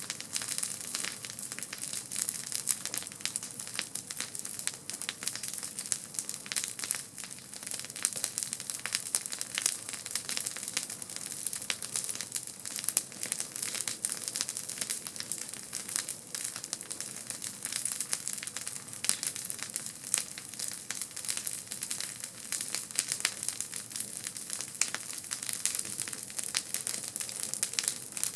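Campfire crackling: a dense, irregular run of sharp snaps and pops over a steady hiss.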